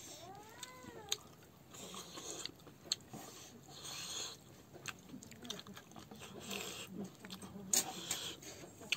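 Close-up eating sounds: chewing and lip-smacking, with the hand squishing and mixing rice on a wooden plate, giving scattered small clicks and wet smacks. In the first second a short whine rises and falls in pitch.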